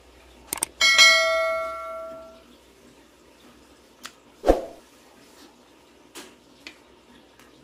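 A clink of tableware: a sharp strike about a second in that rings with a bell-like tone and dies away over about a second and a half, with a few softer clicks and a thump of dishes and utensils around it.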